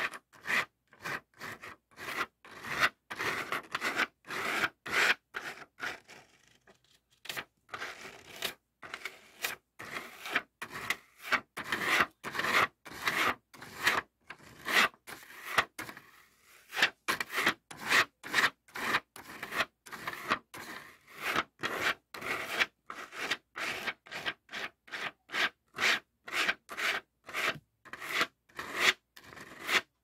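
Fingertips rubbing and scratching back and forth over the faceted resin drills of a finished diamond painting: a dry rasping in short, quick strokes, two or three a second, with a brief pause about six seconds in.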